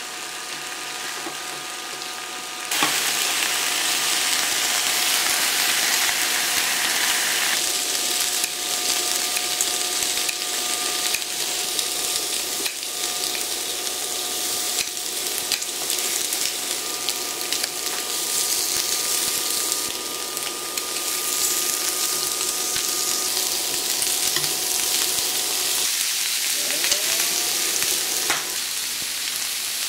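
Pork belly, kimchi and shrimp sizzling on an electric grill plate, a steady crackling hiss that gets louder about three seconds in. Now and then there are light clicks of metal tongs against the food and the plate.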